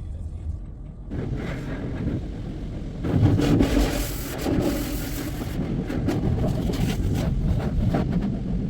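Touchless automatic car wash running, heard from inside a car: a low hum, then a loud rushing hiss of water spray and machinery that comes in about a second in and is loudest around three to five seconds in.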